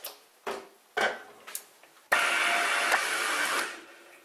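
Spirit (alcohol lubricant) sprayed from a pump spray bottle onto a drill bit over an aluminium workpiece: a few short squirts about half a second apart. Then a loud steady hiss sets in suddenly about two seconds in, lasts about a second and a half and fades out.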